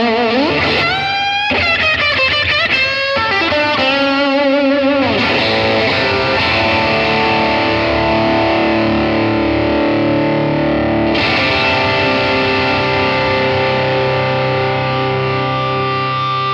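Electric guitar through a Blackstar HT-5R MkII 5-watt valve combo on its overdrive channel, voice 2: bent lead notes with vibrato for the first five seconds, then overdriven chords left to ring out, with a new chord struck about eleven seconds in.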